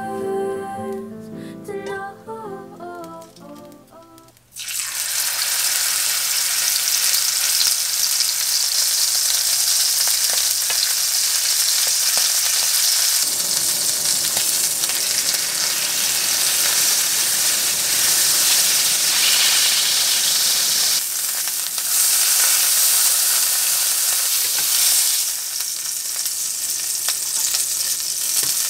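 Beef steak searing in a hot nonstick frying pan: a loud, steady sizzle that starts suddenly about four and a half seconds in and dips briefly about two-thirds through. Soft background music plays before the sizzle starts.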